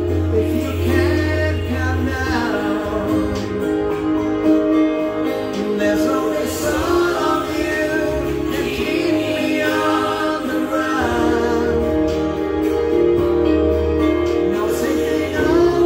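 A man singing a song through a handheld microphone over an instrumental backing track of sustained chords. A deep bass drops away about two seconds in and comes back for a while past the middle.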